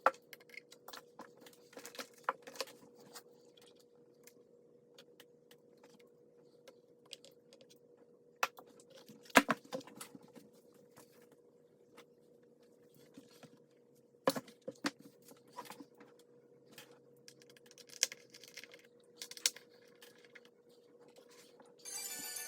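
Scattered light clicks and taps of hands working on computer parts, with a few louder knocks about nine and fourteen seconds in, over a faint steady hum.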